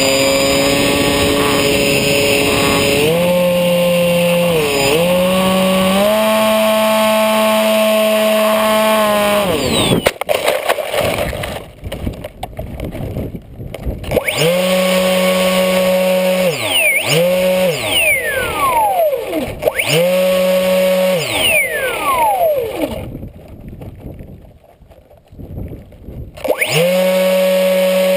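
Brushless electric motor and propeller of a HobbyKing Bixler RC plane, recorded on board: a steady whine that shifts pitch with the throttle. The throttle is cut several times, each time as a falling whine, and the motor falls away for about three seconds before coming back up to steady power near the end.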